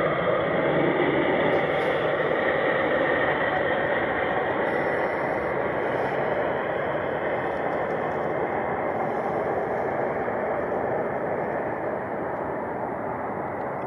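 Jet engine noise of a Boeing 757 freighter rolling out on the runway after landing, a steady rushing roar that slowly fades as the aircraft slows and moves away.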